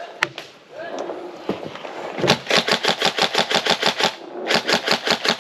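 Airsoft gun firing on full auto: a burst of rapid even shots, about ten a second, lasting nearly two seconds, then a second burst about half a second later.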